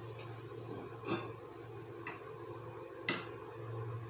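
Three sharp metal clicks and clinks about a second apart, the last the loudest, as a gas stove is switched off and a kadai is moved to another burner and covered with its steel lid. A low steady hum runs underneath.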